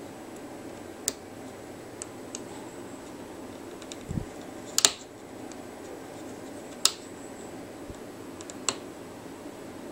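Sharp little clicks and snaps from a plastic hook and rubber bands working over the pegs of a small plastic bracelet loom: four louder ones a couple of seconds apart and a few fainter ticks, over a faint steady hiss.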